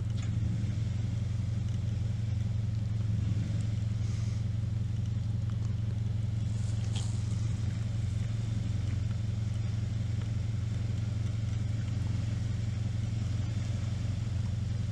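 Subaru flat-four engine running steadily at low revs, a constant low hum, as the car creeps slowly along a rough, rutted dirt forest road.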